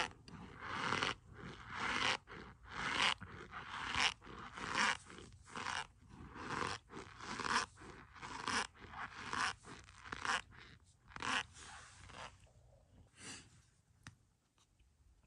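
A spoon digging into a cup packed with a starch and soap mixture, with a crunch each time it pushes in. The crunches come about once a second and stop near the end.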